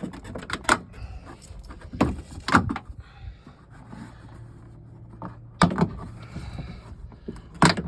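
Plastic interior trim panel being pried and pulled loose by hand, with a series of sharp plastic clicks and knocks as its retaining clips give and the panel shifts, the loudest about two and a half seconds in and near the end.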